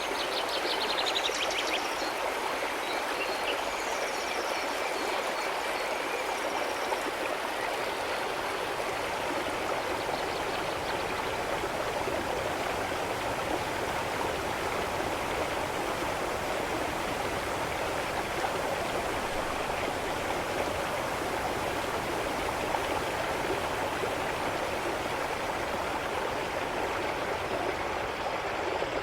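A stream flowing steadily, an even rushing of water. A few high chirps and a short trill sound over it in the first several seconds.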